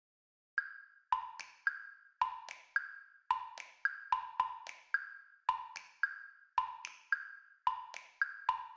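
Background music: a wood block tick-tock pattern, knocks alternating between a higher and a lower note about twice a second, starting about half a second in.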